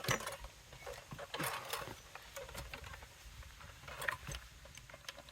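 Irregular light clicks, knocks and scrapes as a T-post driver jammed on the top of a driven steel well pipe is worked at to free it; the pipe end is thought to have mushroomed and locked it on.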